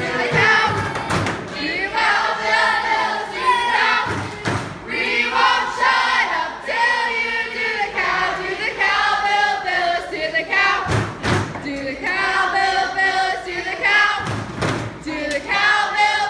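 A crowd of campers singing or chanting together, loud and many-voiced, with heavy thumps now and then.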